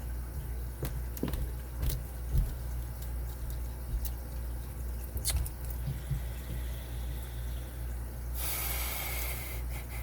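Scattered small metal clicks and taps as tools work a stiff retaining clip inside a Lane Security padlock, trying to turn it. A steady low hum runs underneath, and a short hiss comes near the end.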